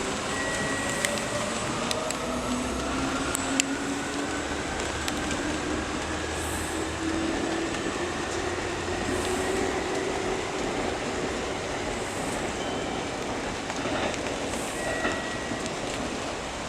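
Seibu 2000 series electric train pulling away: its non-VVVF traction motors and gears whine in several tones that rise slowly and steadily in pitch as it gathers speed, over a steady rolling rumble with a few sharp clicks.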